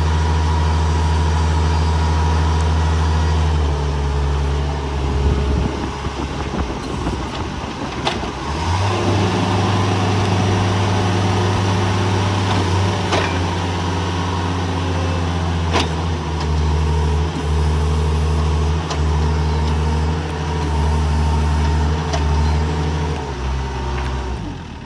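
Engine of a 2005 Princeton PB50 truck-mounted forklift running as the machine moves about, its note shifting and turning rough for several seconds a few seconds in, then settling steady again. A few sharp knocks are heard over it.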